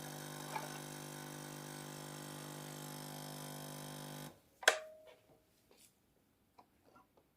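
Nespresso Essenza Mini's vibratory pump buzzing steadily, then cutting off suddenly about four seconds in, followed by one sharp click and a few faint clicks.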